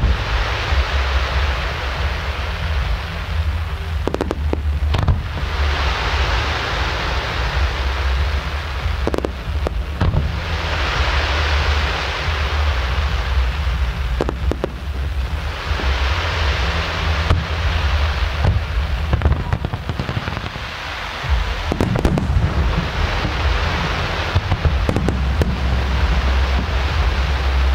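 Aerial fireworks display: shells burst with sharp bangs, each followed by several seconds of dense crackling hiss as the effects burn out. The bursts come in waves every four to five seconds over a steady low rumble.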